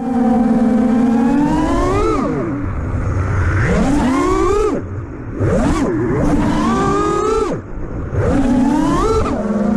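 FPV drone's brushless motors whining, the pitch sweeping up and falling back again and again with the throttle. The level dips briefly about halfway through and again near three-quarters, where the throttle is cut.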